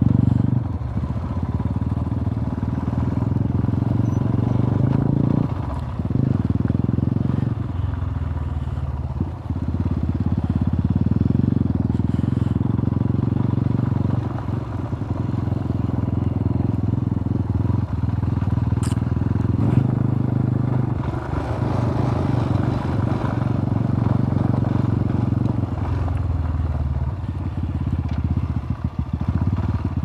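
Royal Enfield Himalayan's single-cylinder engine running under way, a low steady exhaust note that eases off and picks up again with the throttle several times.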